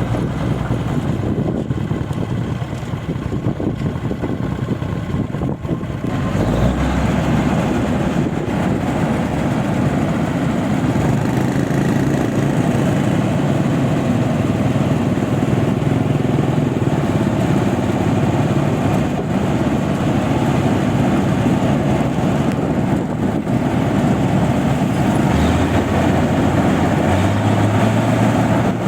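Engine of a rice milling machine running steadily, growing louder about six seconds in.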